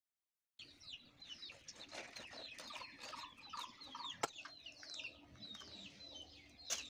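Chickens clucking, mixed with many short, high, falling chirps. The sound starts abruptly about half a second in, and there is one sharp click a little past four seconds.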